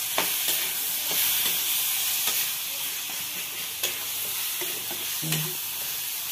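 Mashed roasted eggplant and onion-tomato masala sizzling in oil in a steel kadhai while a metal spatula stirs it, scraping and clinking against the pan several times a second.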